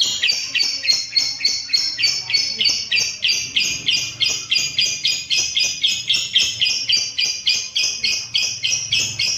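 Lovebird singing in ngekek style: a long unbroken run of rapid, high-pitched chattering notes, about four a second, starting abruptly.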